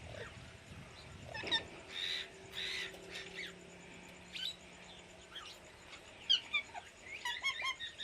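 Pet parrots, an Indian ringneck and a baby orange-winged amazon, calling: short chirps and whistled glides, two harsher squawks about two to three seconds in, and a quick run of chirps near the end.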